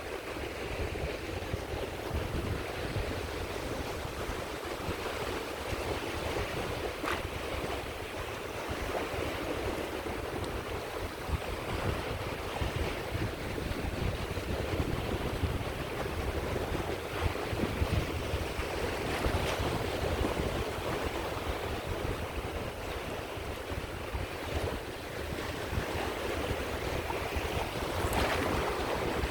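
Caspian Sea waves breaking and washing up the shore in a steady rushing surf, with a low rumble of wind on the microphone.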